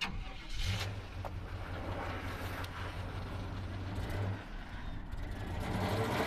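1995 Chevrolet GMT400 pickup engine idling steadily, heard from inside the cab, a low even hum. The owner says it runs a little doggy right now and can stall when pulling away.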